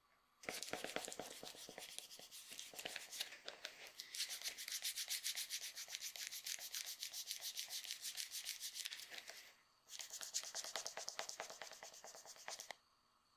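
Small brush scrubbed rapidly back and forth along the edge of a leather shoe sole, a fast, even run of rubbing strokes, several a second. It pauses briefly about ten seconds in, resumes for about three seconds, then stops.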